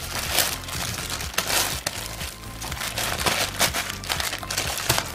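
Plastic postal mailer and bubble wrap crinkling as they are handled and pulled open, in uneven crackly rustles.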